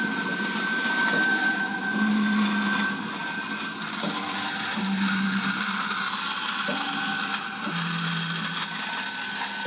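Plastic wind-up toy walking robot's clockwork mechanism whirring steadily as it walks, with a lower buzz coming in for about a second roughly every three seconds.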